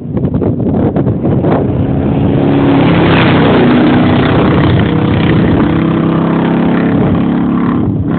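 Late-1990s Chevrolet half-ton pickup with true dual exhaust and catalytic converters driving past under acceleration. The exhaust note builds to its loudest about three to four seconds in and holds until near the end.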